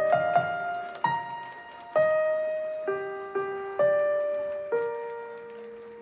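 Background music: a slow piano melody, one note struck about every second, ending on a held note that fades away.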